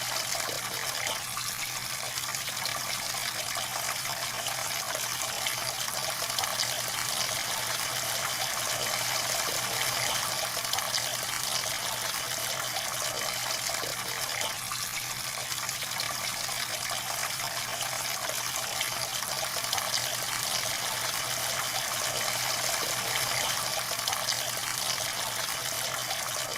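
A steady stream of water pouring and splashing without a break.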